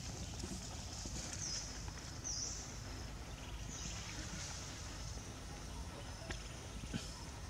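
Quiet outdoor ambience: a steady low rumble with a few short spells of high-pitched buzzing in the first half, and faint light knocks later as a baby macaque clambers on the rim of a plastic water tub.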